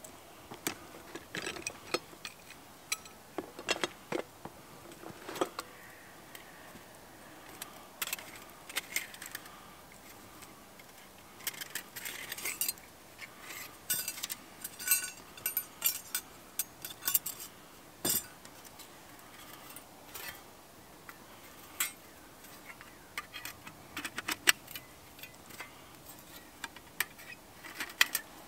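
Close handling of camp gear: cloth rustling and scattered light clicks and clinks of small items being set down and unpacked, busiest in the middle.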